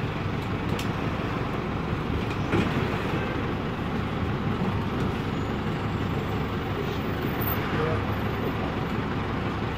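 An Otokar M-2000 minibus's air-cooled Deutz F4L912 four-cylinder diesel running steadily on the move, heard from inside the cabin along with road noise.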